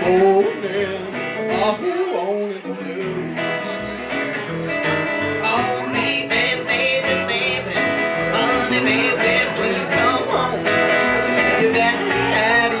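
Live country band playing an instrumental passage: electric guitar, upright bass and acoustic guitar together, with no singing.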